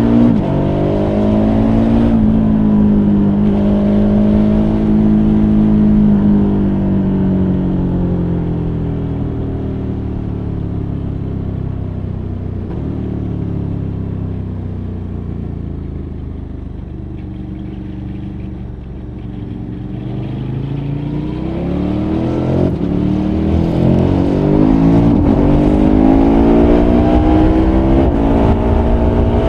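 KTM 1290 Super Adventure R's V-twin engine, heard from the rider's seat. It winds down as the bike slows for a bend, runs quietest around the middle, then pulls hard from about twenty seconds in. Its pitch rises in steps through quick upshifts as the speed builds.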